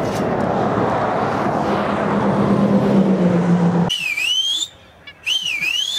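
Rushing wind noise on the microphone with a faint low hum, which stops abruptly about four seconds in; then a person whistles twice, each a dip-and-rise call, the kind used to call the greyhounds back.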